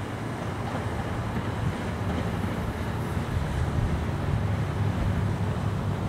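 Wind gusting on the microphone: a steady low rumble that swells a little in the second half.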